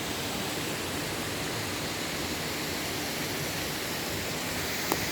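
Steady rushing of falling water from a nearby waterfall, an even hiss without change, with one short click near the end.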